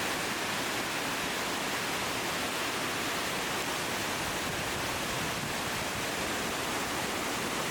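Thundering Falls, a waterfall, rushing: a steady, unbroken noise of falling water.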